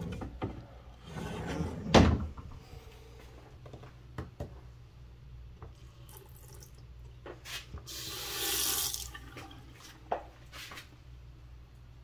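Bathroom sink faucet running a thin stream of water into the basin, briefly louder about eight seconds in. A sharp knock about two seconds in, and a few small clicks later.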